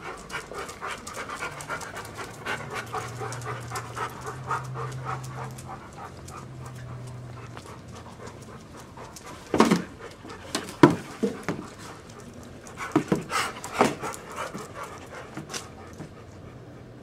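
A big dog panting rapidly close to the microphone. From about halfway through, several sharp, loud noises close to the microphone stand out above the panting.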